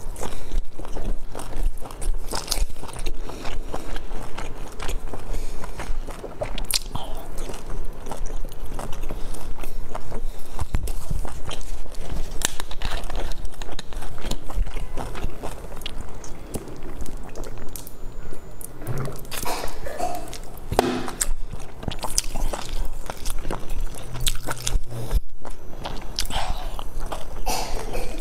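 Close-miked eating: biting into and chewing dumplings filled with eggplant and glass noodles, with many small mouth clicks and smacks throughout.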